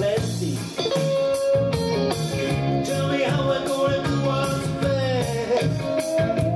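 Guitar music with long, bending lead notes over a repeating bass line, played back through a Cayin CS-55A valve amplifier and loudspeakers.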